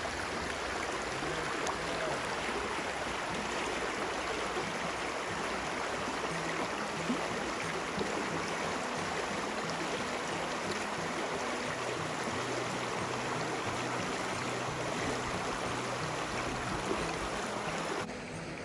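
Mountain trout stream rushing over rocks, a steady wash of running water that drops away abruptly near the end.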